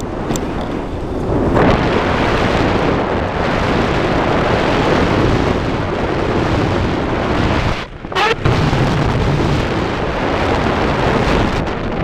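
Loud wind buffeting the camera microphone in flight on a tandem paraglider, a steady rushing and rumbling that briefly drops away about eight seconds in.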